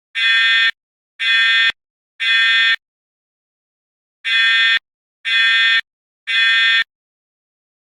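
Fire alarm sounding loud, harsh buzzing beeps in the temporal-three evacuation pattern: three half-second beeps about a second apart, a pause of about a second and a half, then three more.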